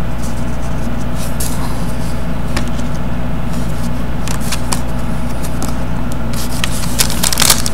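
Trading cards being handled and sorted on a table: scattered soft ticks and rustles, more of them near the end, over a steady low hum.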